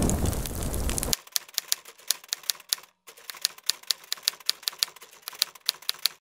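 Typewriter keys clicking in a quick, irregular run of sharp taps over a silent background, a typed-text sound effect. Before the taps begin, a rushing noise cuts off abruptly about a second in.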